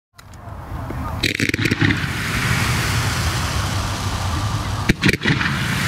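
Outdoor crowd of spectators chattering, fading in over the first second, over a steady low rumble, with two short clusters of knocks and bumps, the louder one near the end.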